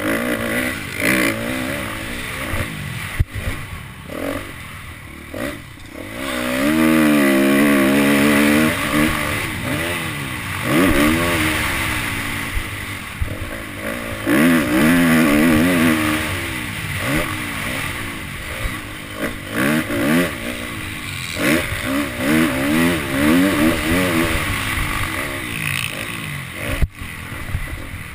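Motocross dirt bike engine revving hard and easing off again and again as it is ridden around the track, its pitch climbing and dropping with each burst of throttle, loudest a quarter and half way through. Heard from the rider's helmet camera over a steady rush of wind and track noise.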